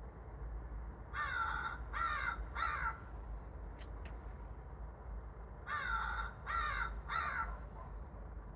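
A raven cawing in two sets of three harsh caws, the sets about four seconds apart, over a steady low hum.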